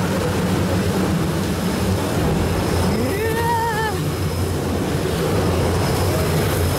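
Steady low mechanical hum of an Aquatopia ride boat moving through the lagoon. About three seconds in, a person's drawn-out voice rises in pitch and wavers for about a second.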